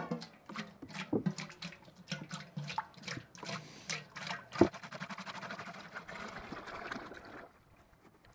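Peanut oil poured from a large tub into an aluminum turkey-fryer pot. It pours unevenly in gulps at first, then as a smoother steady stream, and stops about seven and a half seconds in.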